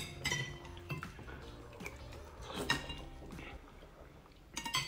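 Spoons clinking against soup bowls and plates as several people eat at a table: scattered short clinks, several close together near the end.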